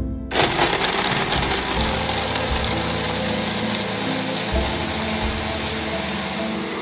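Countertop blender motor starting suddenly and running steadily at speed, blending soaked cashews and seasonings into a sour cream.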